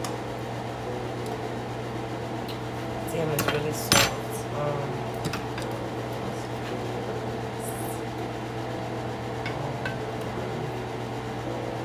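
Utensils clinking and scraping against dishes as food is served onto a plate, with a cluster of clicks about three seconds in that ends in a sharp knock, over a steady low hum.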